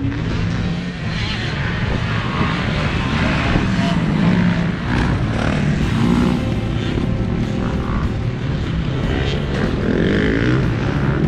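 Several motocross bikes running around a dirt track, their engines revving up and down as they accelerate and ease off through the turns.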